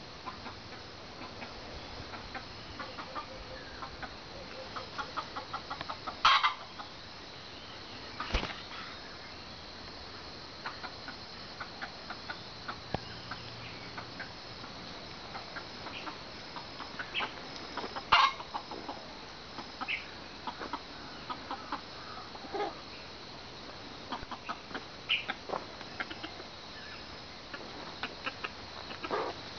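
Red junglefowl cock clucking in short repeated calls, with a few louder sudden sounds about six, eight and eighteen seconds in.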